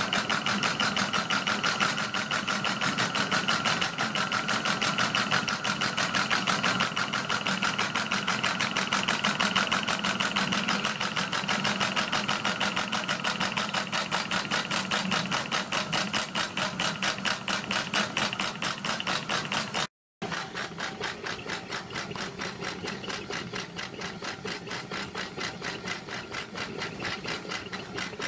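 Metre Maid miniature steam locomotive running light with its wheels jacked clear of the rails, its motion and exhaust making a rapid, very even beat. Steam has been raised by a trial butane gas burner. The sound cuts out briefly about two-thirds of the way through and carries on somewhat quieter.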